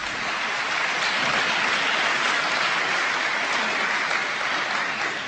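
An audience applauding, swelling in at the start, holding steady, and fading away near the end.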